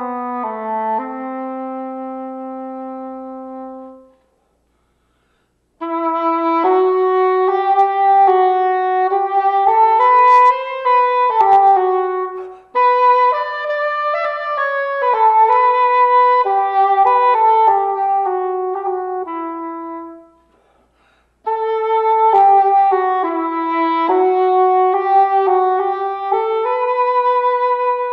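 Unaccompanied cor anglais (English horn) playing a slow, free-flowing melody. A long low held note fades out about four seconds in; after a short pause, phrases of moving notes follow, broken by brief breaths and another pause about twenty seconds in.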